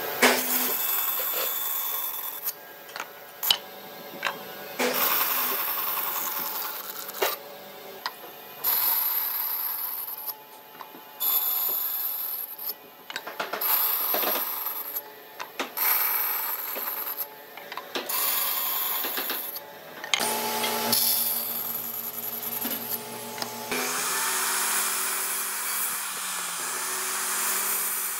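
Woodworking tool working a block of wood: a run of separate scraping strokes, about one every second or two, then a steadier stretch of the same kind of noise over the last few seconds.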